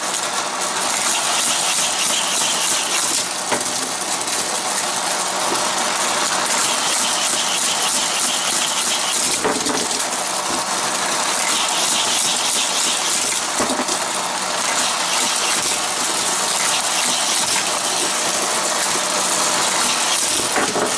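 Battery-powered motorised boosters of a Hot Wheels Mega Loop Mayhem track set running steadily with a loud whirr, with die-cast cars rattling along the plastic track.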